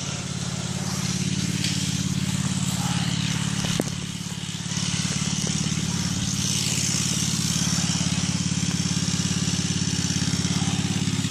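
An engine running steadily at an even speed, with one short knock about four seconds in.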